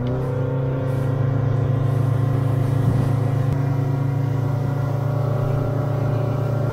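Boat's outboard engine running steadily at cruising speed, heard from inside the pilothouse cabin, with water rushing past the hull. The engine note rises slightly about half a second in and then holds a steady pitch.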